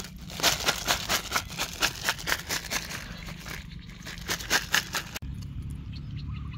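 Plastic-wrapped lollipops and toy candy eggs crinkling and clattering in a plastic basket as a hand rummages through them: a quick run of sharp crinkles and clicks that stops about five seconds in, leaving only a low rumble.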